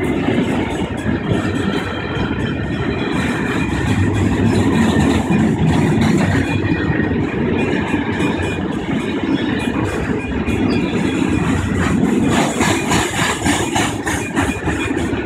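Freight train of flat wagons loaded with steel coils rolling through a level crossing: a steady low rumble of the wagons going by, with a run of rapid clicks near the end.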